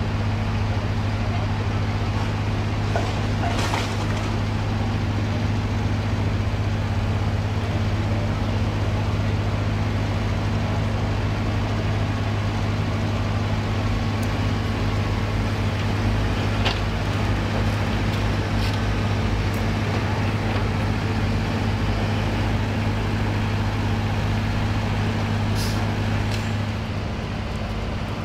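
Heavy vehicle engine idling steadily, a constant low hum, with a few faint clicks and knocks over it.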